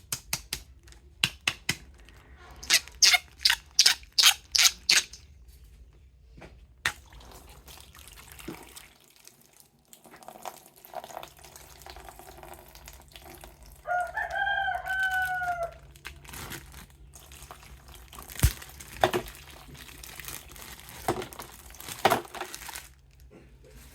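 A rooster crowing once, a pitched call of about two seconds with a rising then falling line, some fourteen seconds in. Before it comes a quick run of sharp clicks and taps, and a few single knocks follow it.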